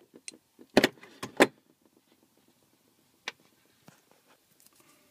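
Wire cutters snipping through a mains kettle lead: three sharp clicks close together about a second in, then a few faint handling clicks.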